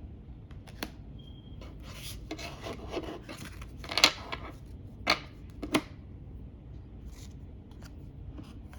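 Tarot cards being handled and flipped through by hand: cards sliding and rubbing against each other, with a few sharp snaps as cards are flipped or tapped down about halfway through.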